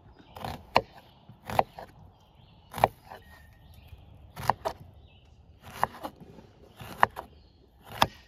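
Kitchen knife chopping an onion on a bamboo cutting board: about nine sharp knocks of the blade against the board, unevenly spaced, some in quick pairs.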